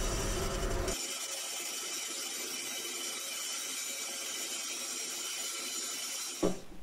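Bandsaw running steadily, its blade cutting a notch in a solid oak board with a high-pitched whine.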